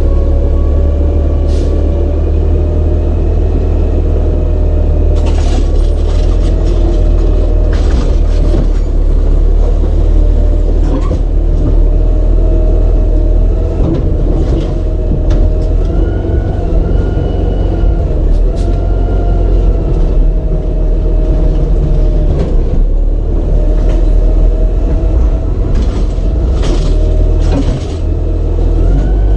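Automated side-loader garbage truck's diesel engine running with a heavy low rumble and a whine that drifts up and down in pitch, broken by a number of sharp clanks and knocks.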